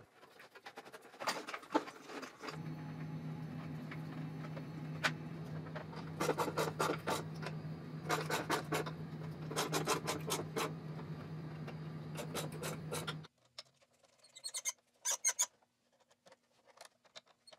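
Handling of stiff insulated copper wire and a hand tool at electrical panel terminals: spells of scraping and rapid clicking as the wires are worked into the lugs and tightened, over a steady low hum that stops abruptly about 13 seconds in, after which there are only a few faint clicks.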